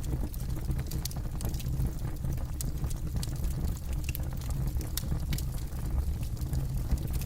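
Wood fire burning, with a steady low rumble of flames and frequent sharp crackles and pops at irregular moments.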